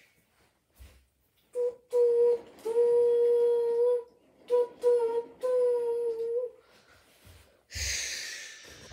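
A child's voice humming several long, steady notes in a row, followed near the end by a hiss that fades away.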